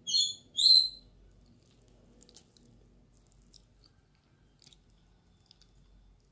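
Two short, high-pitched chirps about half a second apart at the start, like a small bird's call. After them come faint scattered clicks and mouth noises of someone eating.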